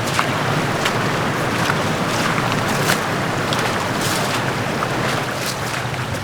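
High, fast-running creek: a steady rush of water with small splashes scattered through it.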